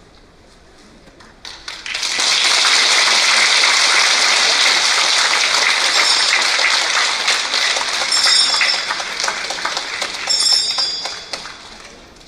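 Audience applauding, swelling up about two seconds in and dying away near the end.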